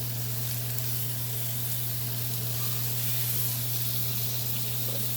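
Sliced white matsutake buttons sizzling steadily in hot butter in a frying pan, over the steady low hum of a kitchen exhaust fan.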